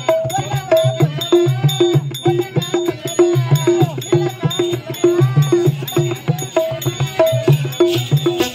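Lively folk dance music with a steady, even drum beat under a bending melody line.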